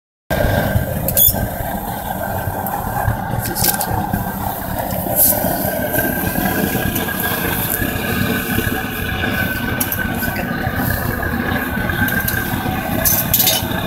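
Propane-fired foundry furnace burner running steadily while melting aluminum, with a few sharp metallic clinks of steel tongs against the furnace lid.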